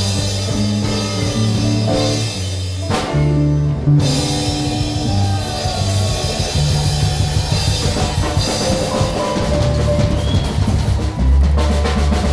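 Live blues band playing an instrumental passage with no vocals: drum kit, bass guitar, electric guitar and electric piano together.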